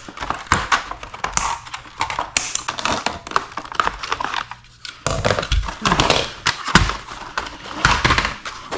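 Toy packaging being cut open with scissors and pulled apart: irregular crinkling of plastic with sharp snips, snaps and knocks of cardboard and plastic, the knocks louder in the second half.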